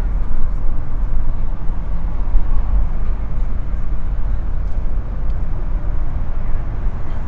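Passenger train running, heard from inside the carriage: a steady low rumble of wheels and running gear.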